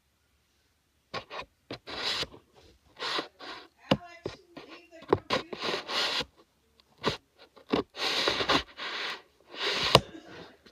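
Laptop packaging being handled, heard as irregular bursts of rustling and scraping that start about a second in, with a couple of sharp clicks.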